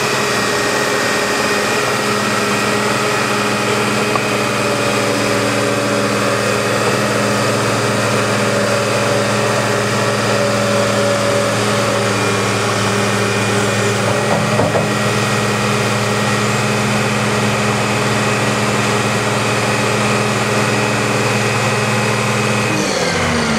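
Caterpillar 963B track loader's diesel engine running steadily at a fixed speed, then dropping in pitch near the end as it is throttled down.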